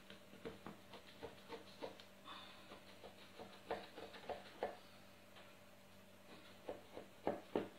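Knife cutting raw baklava, butter-brushed phyllo layered with chopped nuts, into diamonds in a round metal pan: a run of soft, irregular clicks and taps as the blade goes through the pastry and meets the pan, with a few louder taps near the end.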